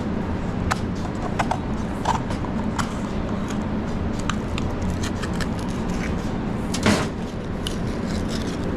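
Scattered light clinks and knocks of kitchen utensils and containers over a steady low background hum, with one louder knock about seven seconds in.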